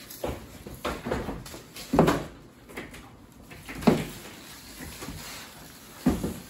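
Cardboard and a plastic protective cover being handled while unpacking a monitor: a few separate dull knocks and scrapes, the loudest about two and four seconds in.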